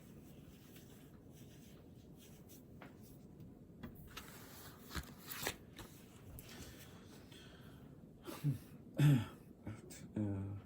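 Soft rustling and handling of paper at a desk, with scattered light clicks, and a few short low murmurs of a man's voice near the end.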